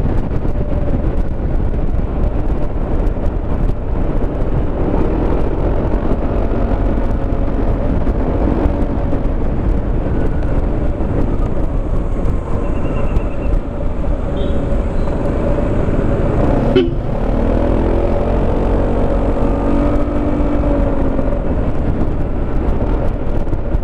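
Wind rushing over the helmet-mounted microphone and the steady drone of a Yamaha XMAX 300 maxi-scooter's single-cylinder engine at cruising speed. A sharp knock comes about 17 seconds in, then a lower steady tone for a couple of seconds.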